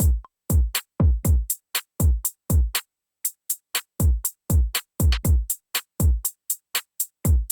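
A programmed drum-machine beat: deep kick drums with long booming tails that slide down in pitch, under short crisp high ticks. The kicks drop out for about a second near the middle, leaving only the ticks.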